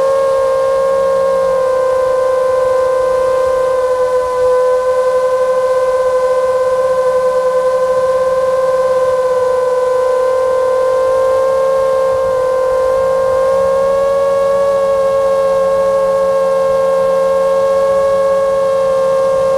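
Five-inch FPV quadcopter's four T-Motor F60 Pro II 2207 2500KV motors with tri-blade props, whining steadily at a gentle cruise throttle, heard from the camera on board. The several close motor tones drift slightly apart and back together about two-thirds of the way through.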